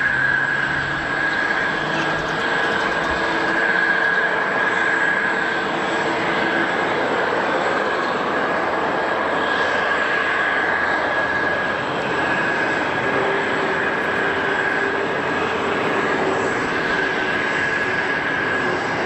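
Jet airliner engines running at steady power: an even rushing noise with a steady high whine over it.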